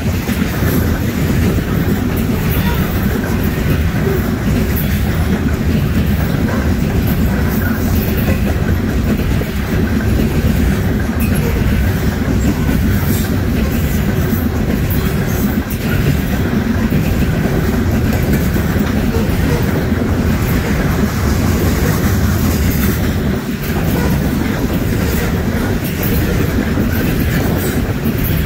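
Loaded coal hopper cars of a freight train rolling past: a steady, loud rumble of steel wheels on the rails, with intermittent clicks as the wheels pass over the rail joints.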